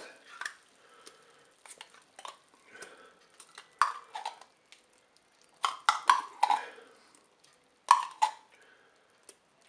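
Tomato paste being scraped out of a small tin into a multicooker's pot: irregular scrapes and clinks of a utensil against metal, with a few louder knocks about 4, 6 and 8 seconds in.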